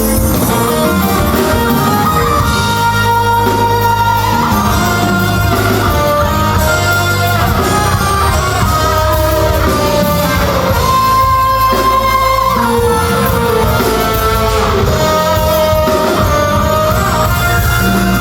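T-pop song playing loud and steady, with a sung melody over guitar and a continuous bass line.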